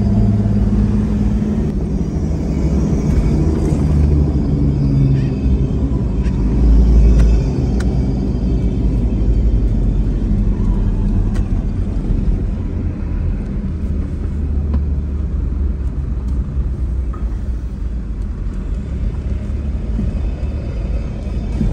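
Nissan Patrol driving on the road: a steady low rumble of engine and road noise. The engine's hum is clearer for the first few seconds, and the rumble swells briefly about seven seconds in.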